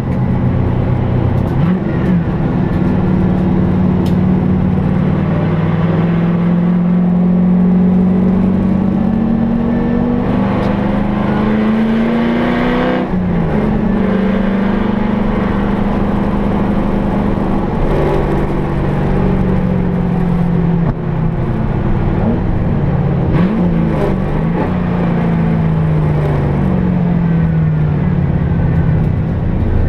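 HSV Clubsport race car's V8 engine heard from inside the stripped, caged cabin, running hard under racing load. The revs climb steadily for several seconds, drop sharply about halfway through, dip and rise twice a little later, then fall away near the end.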